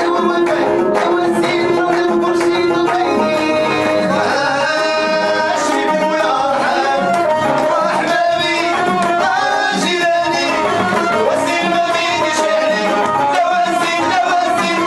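Live Moroccan chaabi music: a violin held upright and an electronic keyboard play over a steady beat, with a man singing and hands clapping along.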